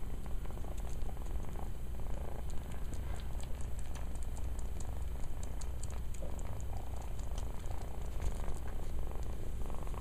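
Kitten purring steadily while it suckles on a carpet as if nursing, with many small clicks from the sucking.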